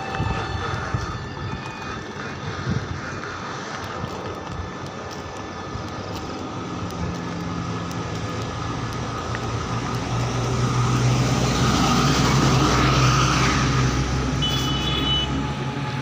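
A heavy vehicle's engine hum over steady traffic noise, swelling louder from about halfway through as it draws near, with a brief high tone near the end.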